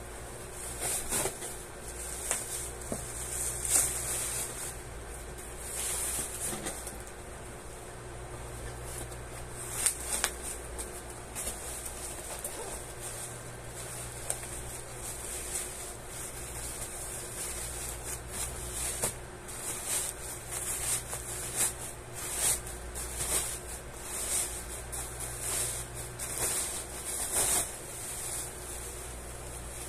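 Black plastic wrapping crinkling and rustling in irregular bursts as it is pulled and torn off a cardboard box, over a steady low hum.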